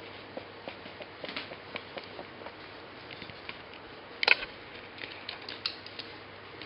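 Corgi puppy's claws tapping and scratching on a table top as it paws and noses at things on it, a string of small clicks with one louder knock a little over four seconds in.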